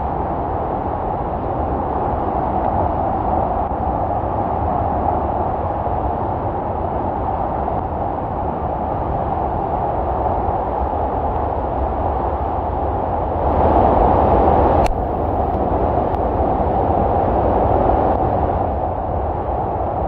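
Waterfall and rushing creek in heavy white-water flow, a loud, steady rush of water. It swells briefly about two-thirds of the way through and ends that swell with a sharp click.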